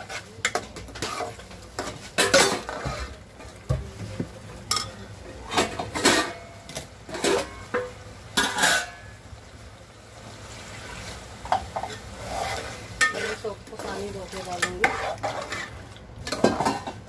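A steel spoon stirring a thick curry in a metal pot, scraping and clinking against the pot in irregular strokes, with a quieter pause a little past the middle.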